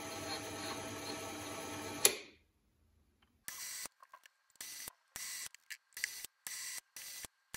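Small metal lathe with 3D-printed plastic change gears running steadily during a thread-cutting pass, a hum with several steady tones. About two seconds in there is a sharp click, after which the sound falls almost silent and returns only in short choppy bursts of hiss.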